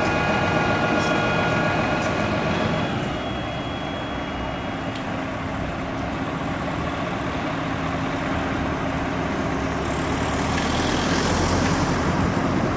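Scania P 450 turntable ladder truck's diesel engine and ladder hydraulics running steadily while the ladder lowers its rescue basket. A whine of several steady tones stops about three seconds in, leaving the engine's steady hum, and a hiss builds near the end.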